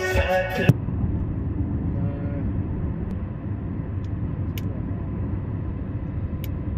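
A background song cuts off abruptly less than a second in. It gives way to the steady low rumble of a vehicle travelling along a road, with a few faint ticks.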